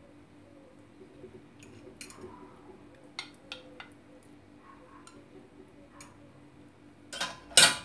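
A metal fork clicking and scraping against an earthenware dish and chicken pieces as they are pushed into place, in scattered light taps. Near the end come two much louder clatters in quick succession.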